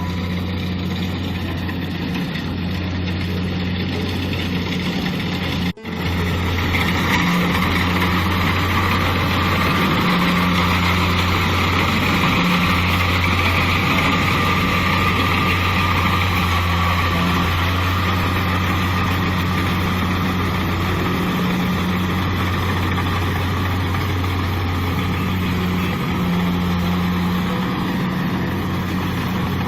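Kubota DC-70 rice combine harvester's diesel engine and machinery running steadily, a constant low hum under a broad mechanical din. The sound cuts out for an instant about six seconds in and comes back a little louder.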